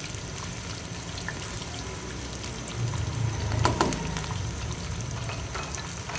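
Sliced onions and whole spices frying in hot ghee in a wok: a steady sizzle, with a brief louder stretch and a few clicks about three to four seconds in.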